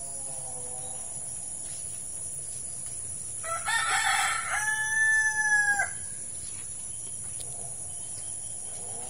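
A rooster crowing once, starting about three and a half seconds in: a rough opening, then a long held note that drops away at the end.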